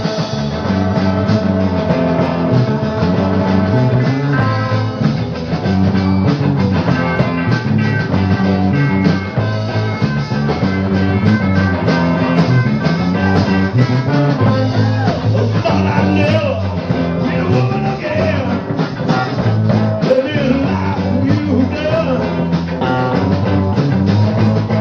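Rock band playing live, with bass guitar, drums and rhythm guitar, and a melody line bending in pitch in the second half.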